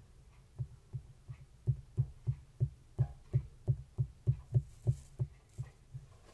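Fineliner pen tip tapping on paper over a wooden table: a steady run of soft, low taps, about three a second. The taps start about half a second in, are strongest in the middle and fade near the end.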